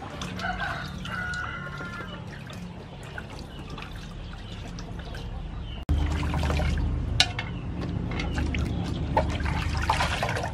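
Water splashing and trickling as vegetables are washed by hand in a metal basin and lifted out in a woven bamboo basket, with scattered clicks of the basket and vegetables. A chicken clucks near the start.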